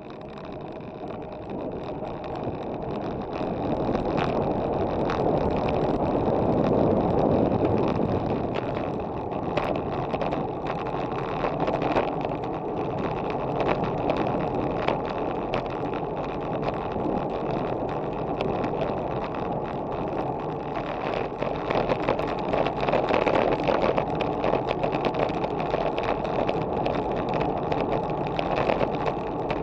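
Wind rushing over a bike-mounted camera's microphone, with a Trek Madone 2.5 road bike's tyres rolling on asphalt at about 30 km/h. The steady rushing noise grows louder over the first few seconds, with occasional light knocks.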